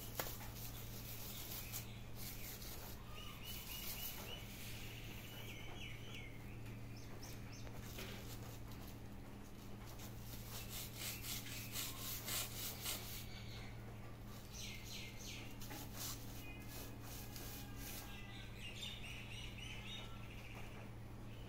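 Small birds chirping in short repeated trills, with the crinkly rustle of a plastic-strip cat toy being dragged and batted across a concrete floor, over a steady low hum.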